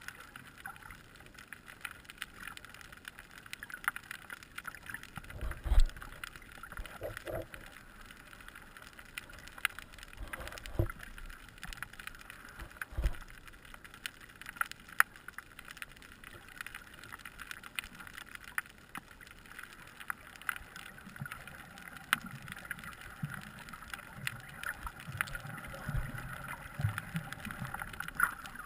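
Underwater ambience recorded by a camera in a waterproof housing: a steady crackle of small clicks with a few dull thumps. Toward the end, low swishing from a snorkeller's fin kicks joins in.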